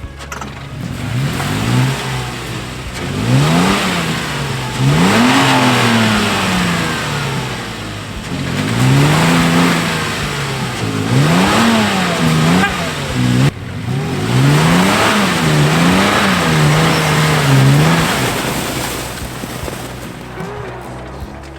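A vehicle engine revving up and down again and again, about eight times, each rev bringing a swell of hissing that fits tyres spinning in snow, as the stuck vehicle tries to pull free; it eases off near the end.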